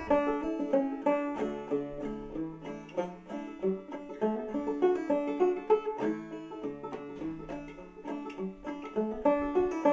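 Five-string banjo played clawhammer style in double D tuning: a steady, bouncy run of plucked melody notes with the open strings ringing alongside.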